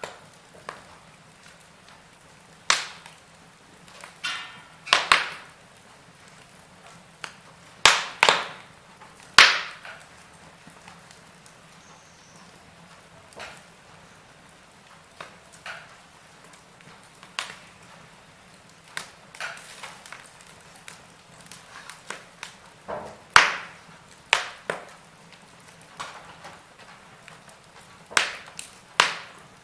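Wood fire in a fireplace crackling: irregular sharp pops and snaps, from under a second to several seconds apart, over a faint low hum.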